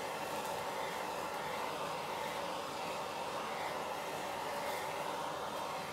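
Handheld gas torch flame burning with a steady rushing hiss while searing the outside of a raw beef roast.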